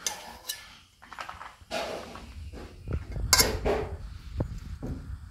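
Steel spoon clinking and scraping against a stainless-steel pot while scooping steamed rice noodles, a series of separate knocks with the loudest clatter a little over three seconds in.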